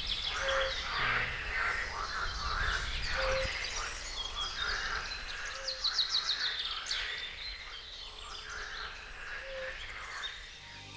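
Wetland ambience: frogs croaking in a quick, repeated chorus with birds chirping and trilling over it. A burst of bird trills comes about six seconds in, and the croaking thins out toward the end.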